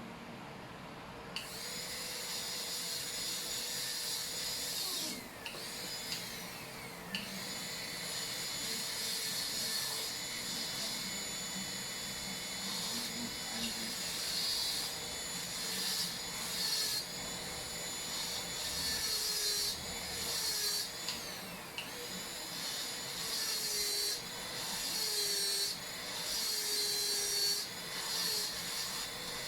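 High-speed dental handpiece (air-turbine drill) cutting a cavity preparation: a high whine that starts about a second in, then stops and restarts many times, sliding down in pitch as it spins down after each stop and wavering in pitch while it cuts in the later part.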